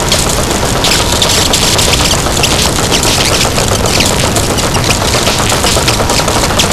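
Harsh noise music: a loud, dense wall of distorted noise with rapid, irregular crackling clicks throughout and no melody or voice.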